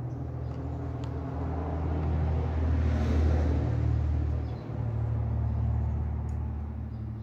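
An engine's low rumble that swells to its loudest about three seconds in, dips briefly, then fades near the end.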